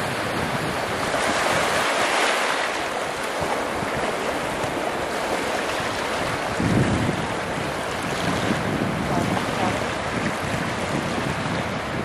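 Wind buffeting the microphone over the steady wash of surf on a beach. A louder wash swells about two seconds in, and a low gust rumbles on the microphone about seven seconds in.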